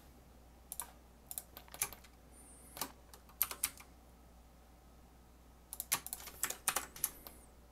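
Computer keyboard keystrokes in short irregular bursts of clicks, with a pause of about two seconds midway and a quicker run of keys near the end.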